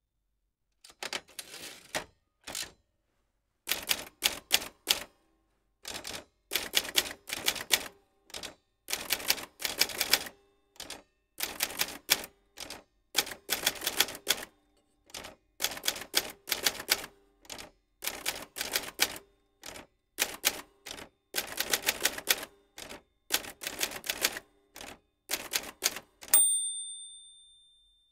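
Typewriter keys struck in quick bursts of several clacks, with short pauses between words and phrases. Near the end the typewriter's bell rings once and rings out slowly.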